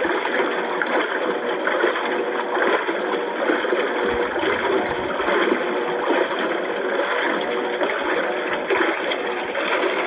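GE top-load washer with a low-profile wash plate churning water in the tub: steady sloshing and swishing over a faint motor hum.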